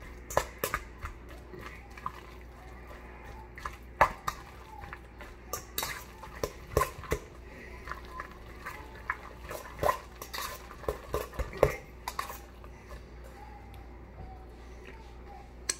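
Metal fork clinking and scraping against a stainless steel mixing bowl as it mashes and stirs avocado into chunky guacamole, in irregular clinks with a few louder knocks.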